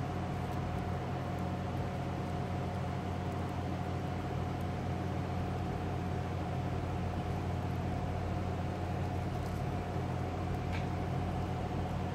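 Steady low machine hum with a constant higher whine over it, unchanging throughout, and one faint click about eleven seconds in.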